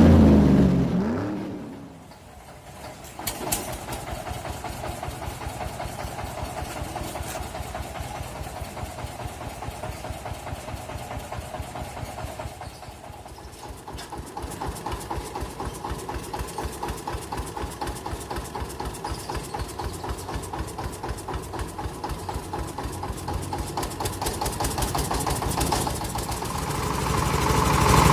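Engine of a portable rice milling machine running with a fast, even pulse. The sound dips briefly about twelve seconds in, then picks up again and grows louder near the end.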